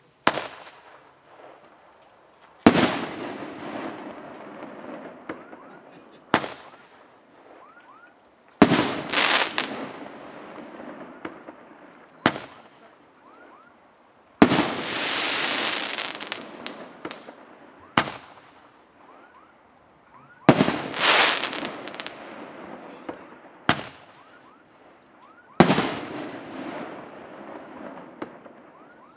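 Russian Fireworks P5900 Roman candle, a 2-inch (50 mm), 8-shot tube, firing its shots one after another. A sharp bang comes every one to four seconds, sometimes two close together, and each trails off over a couple of seconds. About halfway through there is one longer rushing burst.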